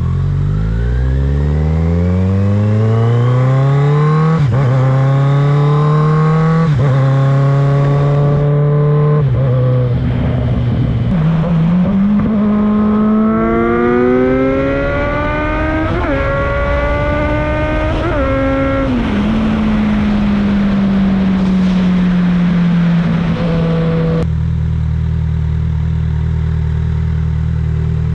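Kawasaki Z900 inline-four engine accelerating through the gears, its revs climbing and dipping briefly at each upshift, then pulling through more gears. It slows with the revs falling and settles to a steady idle near the end.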